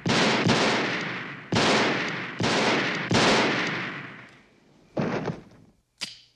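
Five handgun shots in quick succession, under a second apart, each with a long ringing tail. A shorter burst of noise follows about five seconds in.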